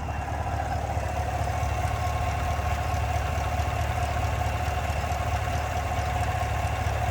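The freshly replaced 6.2L V8 engine of a 2016 Cadillac Escalade idling steadily: a constant low rumble with a steady whine over it.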